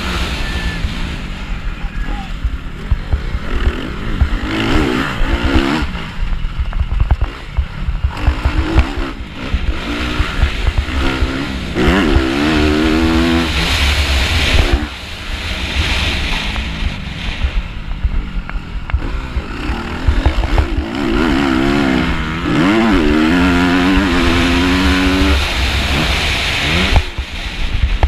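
MX2 motocross bike's engine, heard from the rider's helmet, revving up and dropping back again and again as it is ridden hard around a dirt track, over a heavy low rumble of wind on the microphone.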